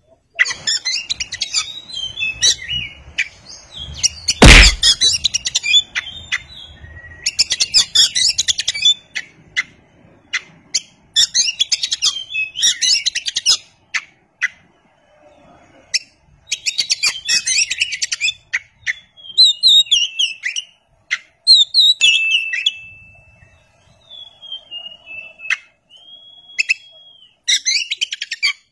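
Oriental magpie robin singing: bursts of fast, twittering phrases every couple of seconds, with a few clear held whistles near the end. A single sharp knock about four and a half seconds in is the loudest sound.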